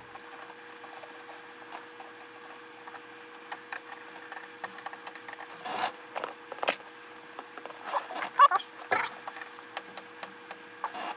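Irregular small clicks, scrapes and rattles of hand-tool work as a fastener is tightened, busiest and loudest between about six and nine seconds in, over a faint steady two-tone hum.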